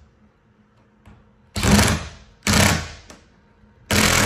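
Cordless drill driving a screw through a window clip into the plastic wall of a hunting blind, in three short bursts: two brief ones, then a longer one near the end.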